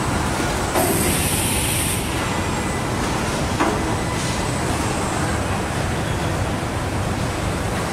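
Car-body assembly line running: a steady hum of robot and line machinery, with a high hiss lasting about a second starting about a second in and a single sharp click near the middle.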